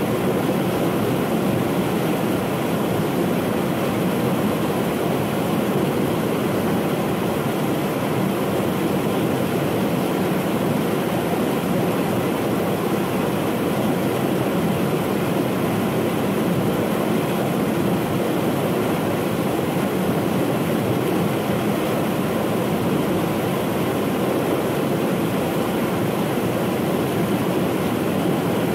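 Steady rush of creek water tumbling over rocky rapids below a waterfall.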